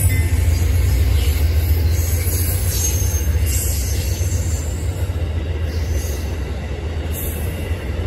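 Amtrak passenger coaches and the trailing cab car rolling past on the rails, a steady low rumble that slowly fades as the end of the train goes by.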